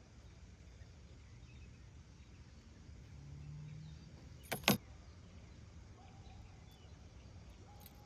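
Two quick sharp clicks a fraction of a second apart, about halfway through, over a faint quiet background.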